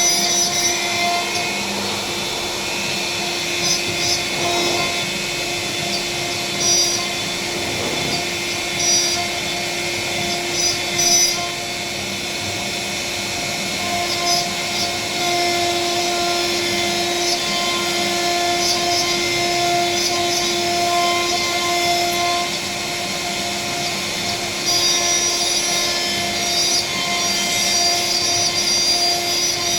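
CNC router spindle running with a steady whine while its bit carves a panel. The cutting noise rises briefly several times, around the fourth to eleventh seconds, as the bit works.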